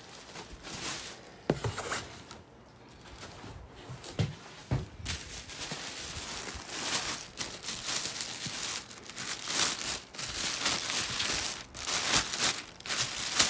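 Clear plastic wrapping crinkling and rustling as a wrapped tote bag is handled and lifted out of a cardboard shipping box. A few sharp knocks come in the first seconds, and the rustling grows busier and louder about halfway through.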